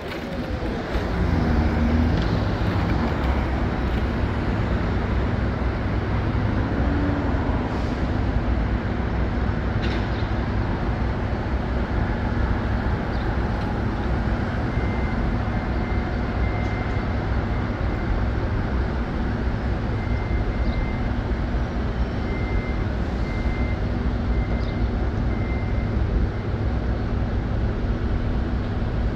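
Steady city street traffic noise with motor vehicles running close by. An engine or motor pitch falls over the first couple of seconds, and faint intermittent high beeps come in the second half.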